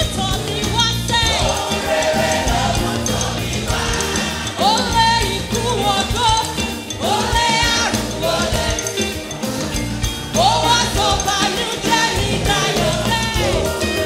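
Live African gospel praise music: lead singers and a choir sing a Yoruba worship song over a band with drums. The sung phrases swoop up into held notes every couple of seconds.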